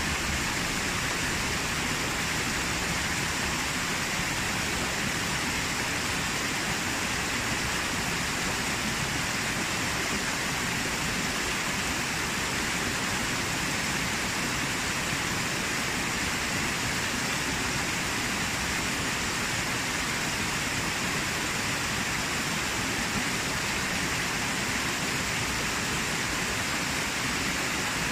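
A small waterfall and its stream cascading over rocks: a steady rush of water.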